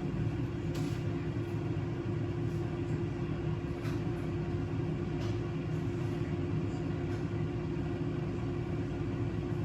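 Steady fan-and-motor hum of a running kitchen appliance, holding two constant low tones over a rumble, with a few faint clicks.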